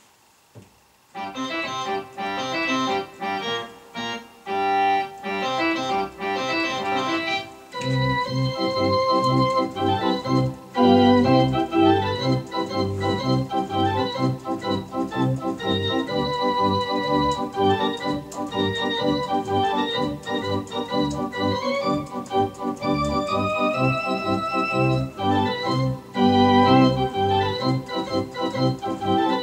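Viscount Cadet digital organ playing a march. Short detached chords begin about a second in, and from about eight seconds the music fills out with a steady, beat-marking bass line.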